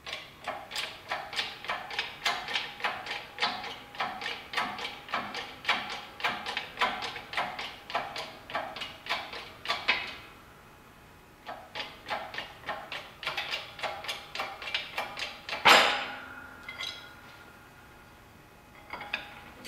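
Hydraulic shop press being pumped, a fast run of sharp clicks about three a second that stops briefly and starts again. A little past three-quarters of the way through comes one loud crack with a short metallic ring: the pressed-in bearing and frost plug breaking loose from the shaft. A few fainter knocks follow near the end.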